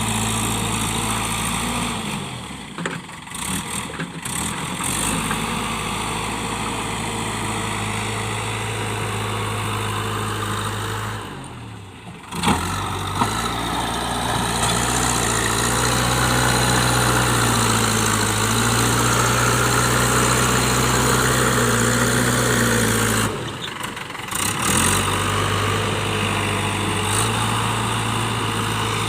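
JCB 3DX backhoe loader's diesel engine running steadily, its speed rising and falling a little as it works. The sound drops away briefly three times.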